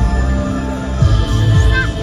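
Music from a nighttime water show: held low notes with drum beats coming in about a second in, and high gliding calls near the end.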